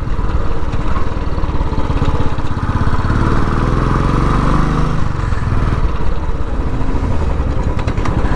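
Royal Enfield Classic 350's single-cylinder engine running while the motorcycle is ridden along a road. The revs climb about three seconds in and drop back a couple of seconds later.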